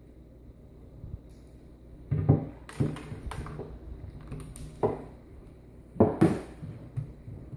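Irregular knocks and clattering of a mixing container and tools being handled, about seven sharp hits spread through the middle and latter part.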